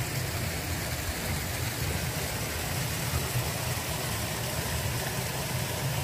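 Steady outdoor background noise: a low, unsteady rumble under an even hiss, with no distinct events.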